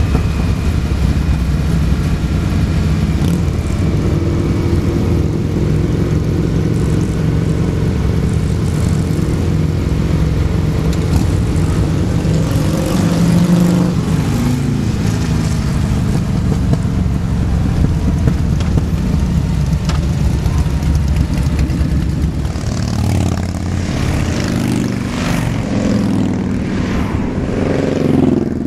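Cruiser motorcycle engines running steadily at road speed, with wind rush, heard from a moving bike in a group ride. About halfway through the engine pitch dips and rises again. In the last few seconds the sound changes to several engines at varying pitch, with gusts of wind noise.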